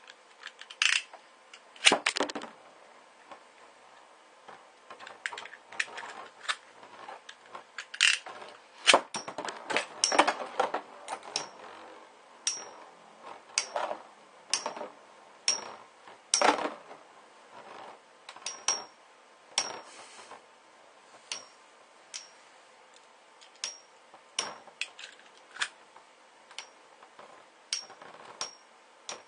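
Two Beyblade metal-wheel spinning tops clashing as they spin in a plastic stadium. Sharp metallic clinks come thick and fast in the first half, then thin out to single ringing pings about once a second.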